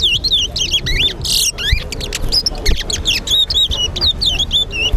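Caged towa-towa finches whistling in a singing contest: a rapid, continuous string of high, sliding whistled notes, repeated over and over, with the phrases of more than one bird overlapping.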